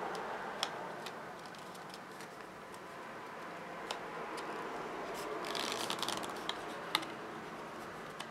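Cardstock being folded and creased by hand: light paper rustling with a few scattered small clicks and taps, and a denser rustle about five and a half seconds in.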